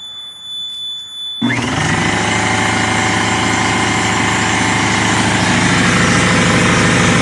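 A high steady electronic beep from a DeWalt battery power station as it switches on. About a second and a half in, an electric air compressor powered by the station starts abruptly and runs steadily and loudly.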